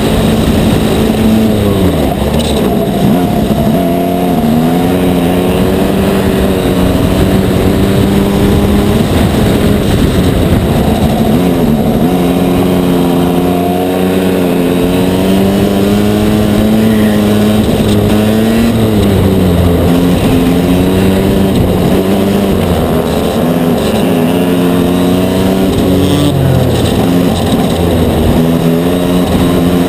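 Aixro XR50 single-rotor Wankel kart engine heard onboard at race pace. Its pitch falls sharply several times as the driver lifts for corners, then climbs back under throttle.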